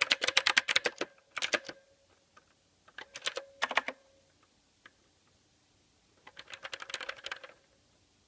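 Mechanical keyboard typing: quick runs of key clicks in short bursts with pauses between them.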